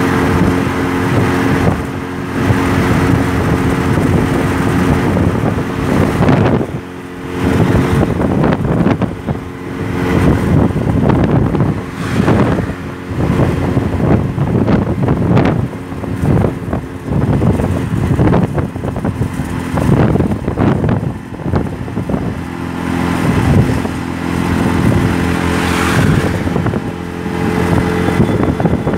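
Auto-rickshaw engine running steadily at speed. Through the middle stretch, heavy wind buffets the microphone and covers the engine, which comes back clearly near the end.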